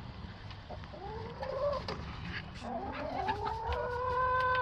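Hens making drawn-out, whining calls that bend in pitch: a short one about a second in, then a longer one that rises and then holds a steady pitch.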